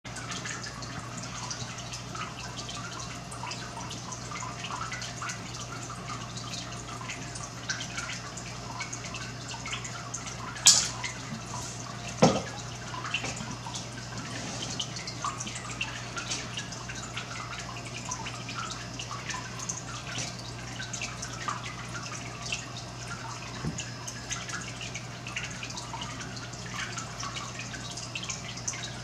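Water dripping and trickling in a turtle pond over a steady low hum, with two sharp knocks about ten and twelve seconds in.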